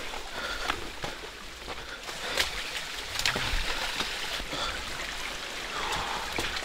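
Water trickling, with footsteps splashing and squelching down a wet, muddy track and a few sharp clicks.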